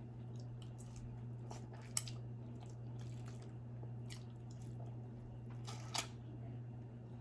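Close-miked mouth sounds of a person eating: soft wet chewing and smacking, with a sharp click about two seconds in and another near the end, over a steady low hum.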